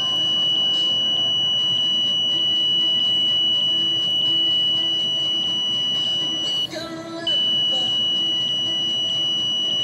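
A steady high-pitched electronic buzzer tone, held continuously with a faint tick roughly every half second. It cuts out briefly about seven seconds in, then resumes.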